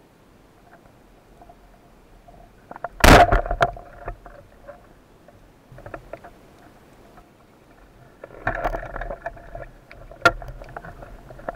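A rubber-band speargun fires underwater with a single sharp, loud crack about three seconds in, followed by a short rattle. Later comes a burst of knocking and scraping, then a sharp click near the end as the speared mullet is handled on the shaft.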